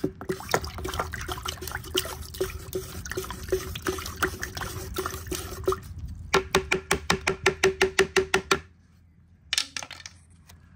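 Wooden stir stick stirring liquid in a plastic measuring pitcher: sloshing with irregular taps of the stick against the sides, then about six seconds in a fast, even knocking, about six a second, which stops after a couple of seconds.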